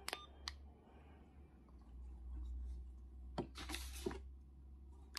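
Faint clicks of a handheld two-way radio's keys being pressed, the first and last with a short beep, as the toggle key switches between POC and analog mode. Brief rustle of handling the radio midway, over a low steady hum.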